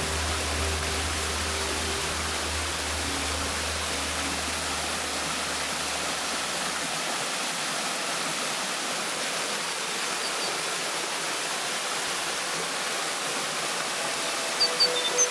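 Waterfall rushing steadily. A low hum underneath stops about seven seconds in, and a run of short, bright high notes of music begins just before the end.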